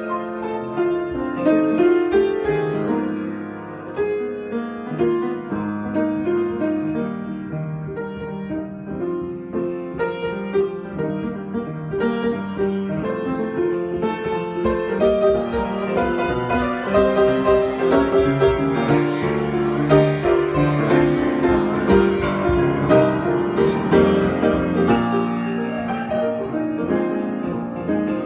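Solo piano improvisation: a continuous flow of notes and chords, played without a break.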